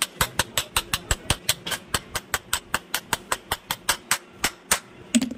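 Rapid, even tapping of a hand tool on a ceiling fan's metal end cover around its central bearing, about six sharp knocks a second, stopping shortly before the end.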